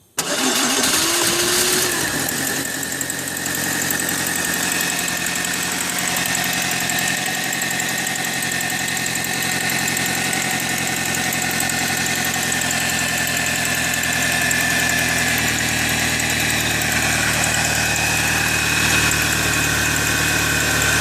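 2002 Pontiac Grand Am engine firing up suddenly, running louder for about two seconds, then settling into a steady idle. The car is hard to start and only catches after several tries.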